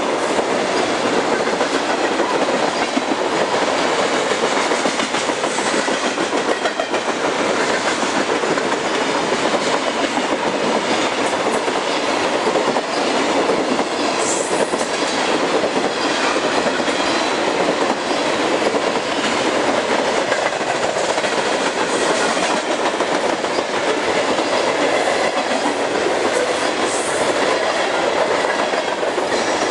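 Freight train cars passing at speed close by: a steady, loud clatter of steel wheels on the rails, with a clickety-clack over the rail joints.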